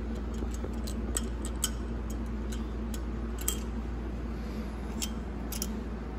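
Light, irregular metal clicks and taps from the pressure regulator valve spool, springs and spring seats being handled and worked into the valve bore of an E4OD/4R100 transmission pump, over a steady low hum.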